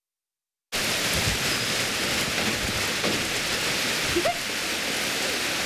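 Heavy rain pouring onto a paved street and pavement, a dense steady hiss that cuts in suddenly less than a second in, after a moment of silence.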